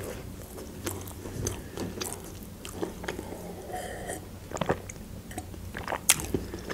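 Close-up chewing and crunching of a slice of pide whose crust has gone hard, with scattered crisp bites. About four seconds in come a few gulps of juice from a glass, and a sharp click near the end.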